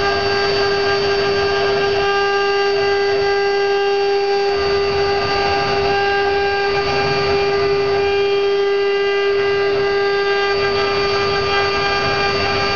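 Woodworking CNC router spindle running with a steady high-pitched whine while its bit carves a relief into a solid wood block, with a rough cutting noise underneath that swells and eases as the bit moves.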